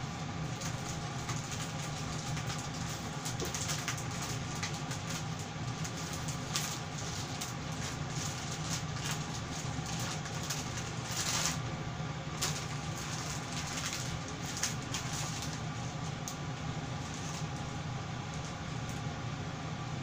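Kitchen ventilation fan running with a steady hum, over scattered light ticks and crackles from the solid-fuel mini kamado cooking rice, with a brief louder crackle about eleven seconds in.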